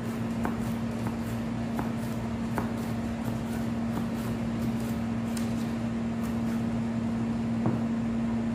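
Chef's knife slicing vegetable strips on a plastic cutting board, with scattered light taps and scrapes of the blade on the board. Behind it runs a steady low electrical hum, the loudest sound, like a fan or air conditioner.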